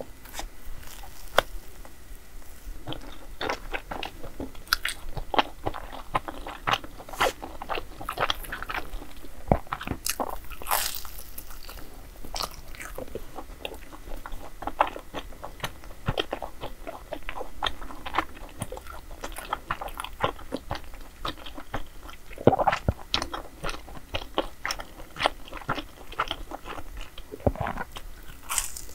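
Close-up eating: bites and crunchy chewing of food, a dense run of crisp crackles with a few louder bites scattered through.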